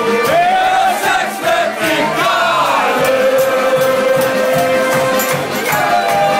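Loud party music with a steady beat, and a crowd singing along, holding one long note through the second half.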